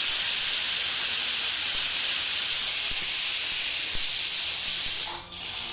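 Pressure cooker letting off steam through its weight valve, the whistle that shows the cooker has come up to pressure. It is a loud, steady hiss that starts suddenly and cuts off about five seconds in.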